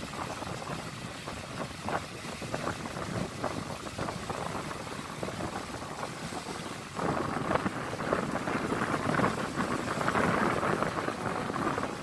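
Small sea waves washing onto a sandy beach, with wind rumbling on the microphone; the sound grows louder about seven seconds in.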